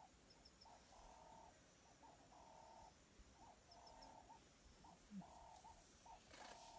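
Faint animal calls in a steady rhythm: a short note followed by a longer held note, repeating about every second and a half, with faint high chirps now and then and a brief rustle near the end.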